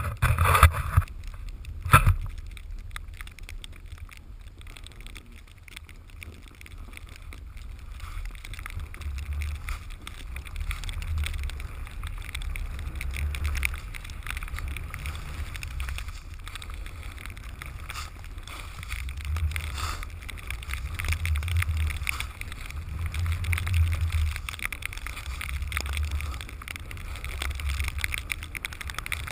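Snowboard sliding and carving over snow, a scraping hiss, with wind buffeting the helmet- or pole-mounted action camera's microphone as a low rumble that swells and fades. Two sharp knocks come in the first two seconds.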